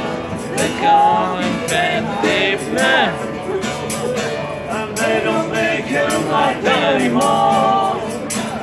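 Voices singing along to a strummed acoustic guitar, with a tambourine jingling on the beat about twice a second.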